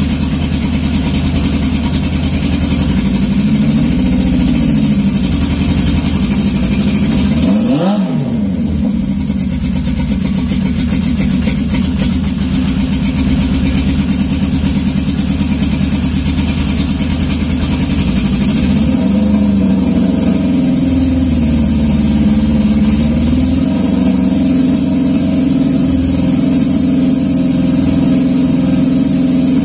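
Turbocharged Honda CB750 SOHC inline-four engine running at idle. Its revs rise and fall a few times, with a sharp dip and recovery about eight seconds in.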